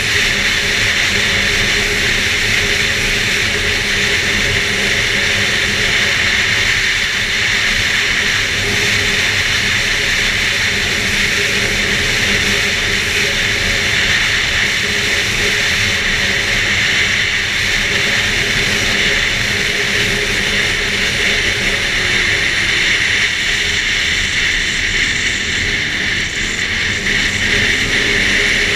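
Arctic Cat F8 Sno Pro snowmobile's two-stroke twin engine running steadily under way, loud and even, with a constant hiss over it.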